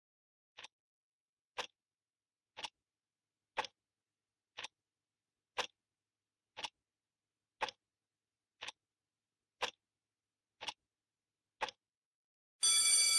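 A clock ticking about once a second, each tick a sharp click with silence between. Near the end a loud, steady electric ringing starts suddenly: a school bell.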